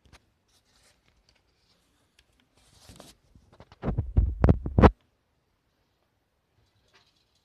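Camera handling noise: a short cluster of close knocks and rubbing with a deep rumble about four seconds in, as the camera is lowered onto the countertop. Otherwise near silence with a few faint clicks.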